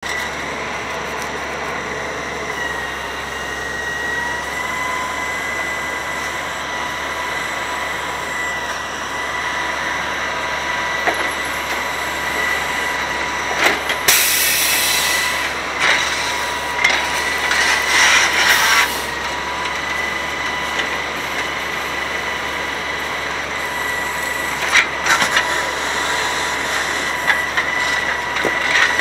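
Grapple truck's hydraulic knuckle-boom loader working with the truck running: a steady high whine over a constant mechanical noise, with scattered clicks and knocks. There are two loud bursts of noise around the middle as the grapple closes on a pile of curbside debris.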